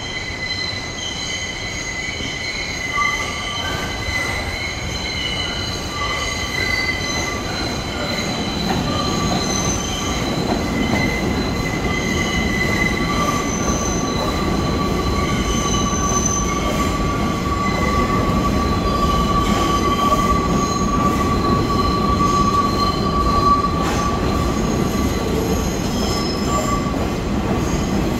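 New York City Subway 3 train of R62 cars pulling into a station, its wheels squealing in several steady high tones over the rumble of the cars, getting louder as it comes alongside.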